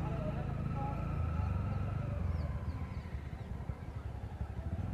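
Single-cylinder engine of a TVS Ntorq 125 scooter running at low speed, easing off about halfway so its firing pulses come through more separately. A few faint high chirps sound near the middle.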